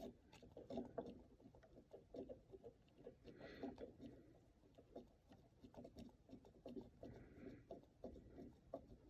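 Faint, irregular plastic clicks of the Screaming Meanie 220 alarm clock's buttons being pressed over and over while the hour is stepped forward to set the clock.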